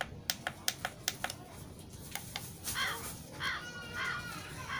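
Sharp clicks of buttons being pressed on a live sound card. From about three seconds in, one of its preset sound effects plays through a small Crown speaker: four or five short rising-and-falling calls, about half a second apart.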